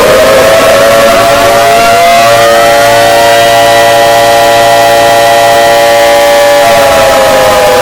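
Loud civil-defense-style siren tones in an emergency alert alarm. One tone finishes winding up and holds steady, a second, higher tone winds up and joins it about two seconds in, and the lower tone begins to wind down near the end.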